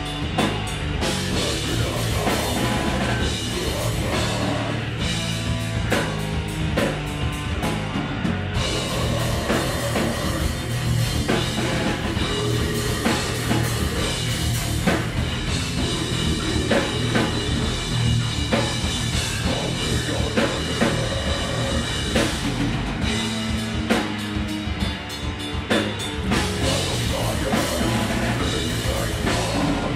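A band playing heavy, loud rock music live, driven by a fast drum kit, with a brief thinning of the low end about three-quarters of the way through.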